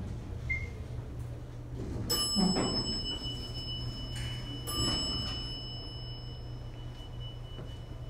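Mechanical bell chime of a 1984 Dover elevator struck twice, about two and a half seconds apart, each strike ringing on with a few clear high tones, as the car arrives at the floor and the doors slide open. A steady low hum runs underneath.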